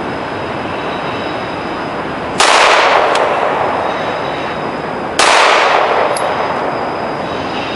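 Two 9mm Glock 17 pistol shots about three seconds apart, each with a long echo trailing off, over the steady noise of a train running in the background.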